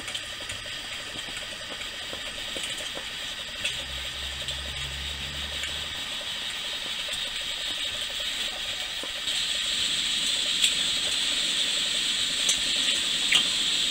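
Small camp stove burning with a steady, rather noisy hiss that grows louder, stepping up about nine seconds in, with a few light metallic clicks as it is handled.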